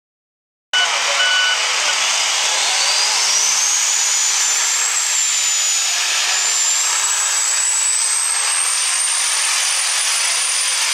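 After a moment of silence, a super stock diesel 4x4 pickup's engine runs flat out under load pulling the sled, a loud steady din with a high turbocharger whistle that climbs over a couple of seconds and then holds.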